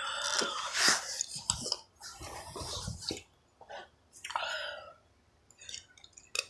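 A person chewing right at the phone's microphone: irregular wet crunches and mouth noises in bursts of uneven length, loudest in the first second.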